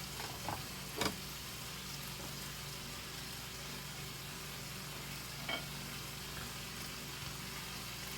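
Taco meat sizzling steadily in a frying pan, with a few light clicks of a utensil or pan.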